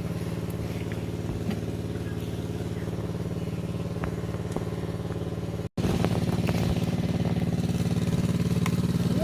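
Small engine running steadily at a constant speed. It drops out for an instant about two thirds of the way through, then comes back a little louder.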